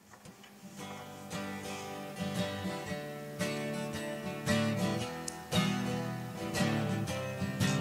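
Background music: a strummed acoustic guitar intro that fades in from silence and grows louder.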